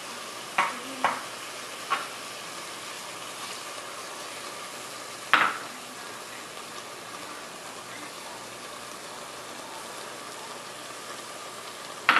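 Pork ribs frying in a pot over high heat, a steady sizzle. Sharp clinks of kitchenware sound over it: three in the first two seconds, a louder one about five seconds in, and another near the end.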